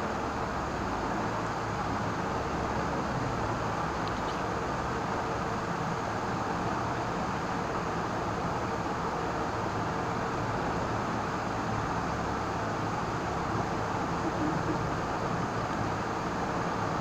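Steady background hiss and rumble with a faint steady hum.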